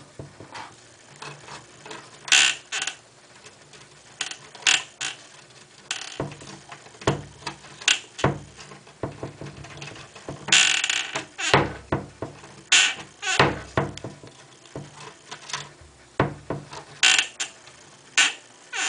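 Hamster clawing and pushing at the bottom edge of a wooden closet door: irregular scratches, scrapes and small knocks of the door against its frame, with a longer scrape about ten seconds in.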